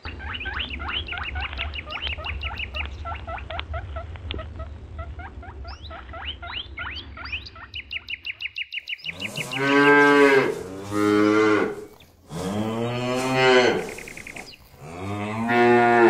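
A run of rapid, short, high chirps, several a second, then cattle mooing: four long, loud moos from about nine seconds in, the last still going at the end.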